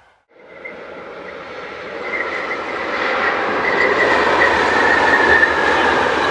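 An electric locomotive-hauled passenger train runs along a concrete viaduct. The rumble of its wheels and coaches grows louder for the first few seconds and then holds steady, with a high thin squeal from the wheels riding over it from about two seconds in.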